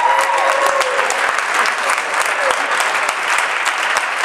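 Audience applauding: steady, dense clapping from a crowd in a gymnasium.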